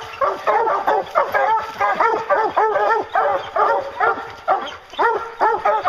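A pack of bear hounds baying in rapid, overlapping barks, several a second, while jumping up against a tree trunk. This is barking treed, the sign that the hounds have a black bear up the tree.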